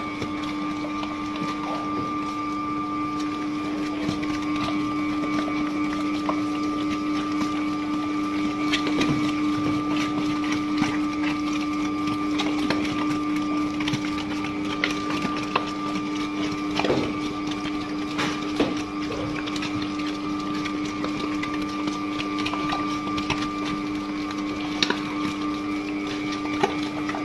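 Home-built dough mixer running steadily: a constant motor hum with a higher steady whine, and scattered irregular clicks and knocks.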